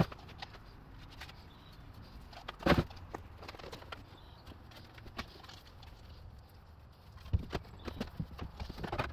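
Irregular light taps and knocks from a brush and a plastic cup being handled while mold release is brushed onto fiberglass molds. One louder knock comes about three seconds in, and the taps come thicker near the end.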